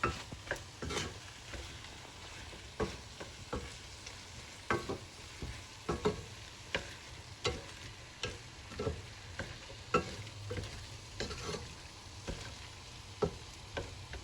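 Spiced onion-tomato masala for butter chicken sauce frying in a pot while a spoon stirs it, knocking and scraping against the pot at irregular intervals over a steady sizzle.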